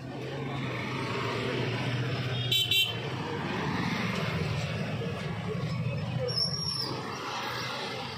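Motorcycles and scooters passing close by with their engines running, and two short toots of a vehicle horn about two and a half seconds in.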